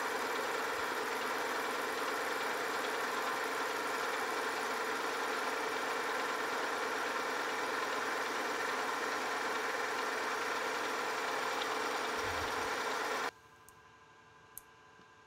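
Metal lathe running steadily with a light whine, taking a light finishing cut on a bronze bushing turned between centers on an expanding mandrel. It cuts off suddenly near the end, followed by a faint click.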